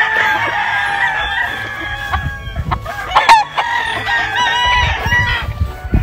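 Gamefowl roosters crowing: one long crow in the first two seconds, then more crows from several birds overlapping in the second half.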